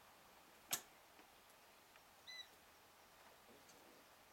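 Near-quiet room with a single sharp click about a second in, then a brief high-pitched squeak a little after two seconds.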